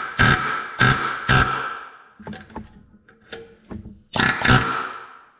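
A chisel being driven into a steel oil pan to punch a hole for an oil-return fitting, in sharp metallic strikes that each ring off. A quicker group of strikes comes at the start, lighter taps follow in the middle, and two more hard strikes come near the end.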